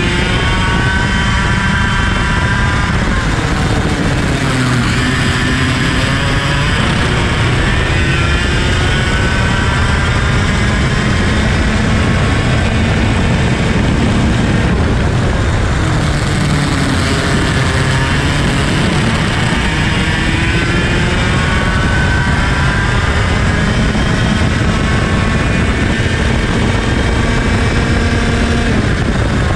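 IAME KA100 100cc two-stroke kart engine at racing speed, its revs climbing on the straights and dropping back into the corners, over and over.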